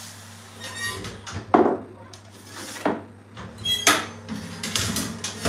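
Metal baking tray knocking and scraping as it is slid into a hot oven, with several separate clanks, the loudest about a second and a half in.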